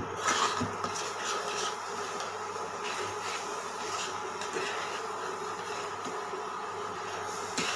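A spatula stirring and scraping thick carrot halwa in a pan, with several soft scrapes in the first two seconds and again about three to four seconds in, over a steady hum.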